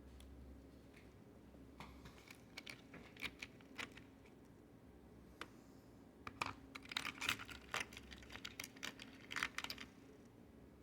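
Small hard parts of a soda bar gun being handled: irregular clicks and light rattles of plastic and metal pieces. They come in two bursts, a sparse one about two seconds in and a denser flurry from about six seconds in.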